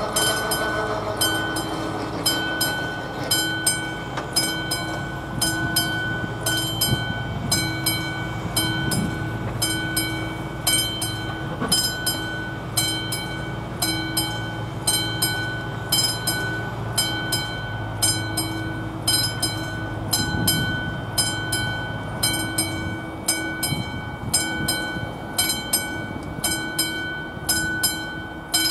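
Classic mechanical bell of an AŽD 71 level-crossing warning signal ringing steadily at about one and a half strikes a second, signalling an approaching train. A low rumble runs beneath it and dies away about two-thirds of the way through.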